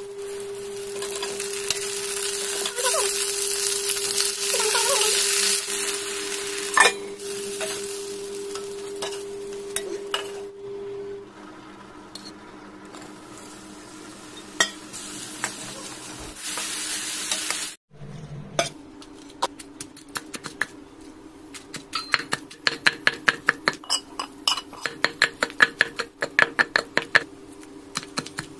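Green chillies and then tomato pieces sizzling in oil in a kadai, the sizzle loudest in the first few seconds and fading to a low frying hiss. After a cut, a stone pestle pounds the chutney in a granite mortar in quick, even strokes, about three or four a second.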